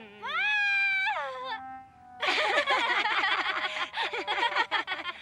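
Cartoon character voice: one drawn-out wail that rises, holds and falls, then, about two seconds in, a long run of rapid, overlapping voice sounds with sharp clicks mixed in.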